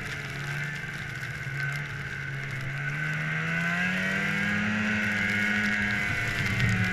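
Snowmobile engine running while riding. Its pitch climbs from about three seconds in and drops back near the end, under a steady higher whine.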